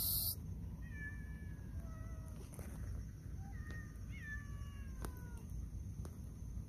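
Domestic cats meowing: several drawn-out meows of about a second each, one bending upward in pitch near the middle.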